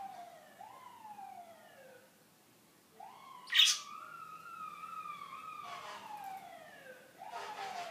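A budgerigar gives one loud, sharp chirp about three and a half seconds in. Under it runs a fainter siren-like wail that rises quickly and then slowly falls, several times over.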